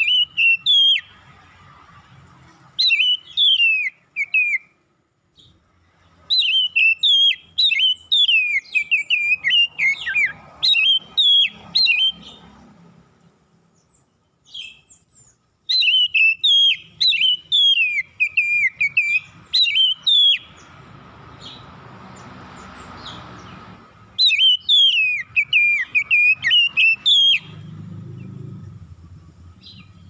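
Oriental magpie-robin (kacer) singing: phrases of rapid, clear whistled notes that sweep up and down, each run lasting a few seconds, with short pauses between.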